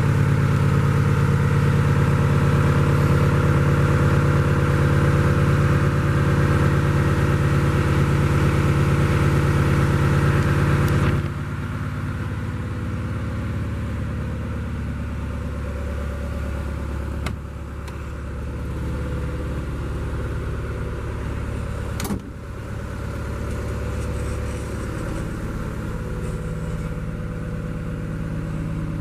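Hitachi FH130 excavator's diesel engine running steadily at a constant speed. It becomes quieter about eleven seconds in, and two short sharp knocks come later.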